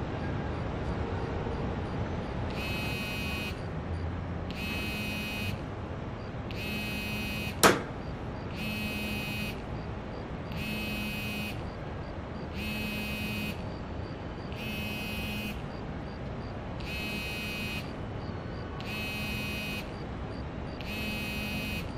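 A phone's electronic ringing tone, sounding in pulses of just under a second about once every two seconds, over a steady background hum. A single sharp crack about seven and a half seconds in is the loudest sound.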